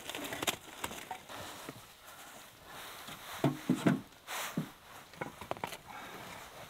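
Irregular wooden knocks and clatter of firewood being handled and loaded into a small metal wood stove, with a cluster of louder knocks about three and a half seconds in.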